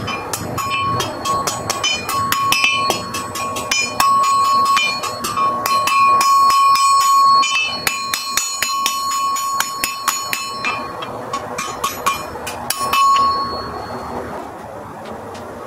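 Blacksmith's hammer striking hot iron on a steel anvil in a quick run of blows, the anvil ringing, sped up to twice normal speed. The blows thin out about two thirds of the way through and stop near the end.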